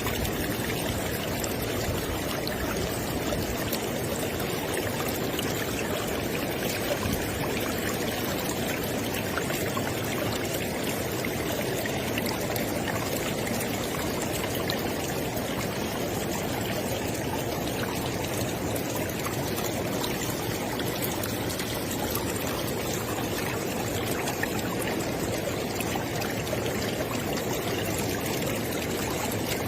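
River water flowing, a steady rushing with no break or change.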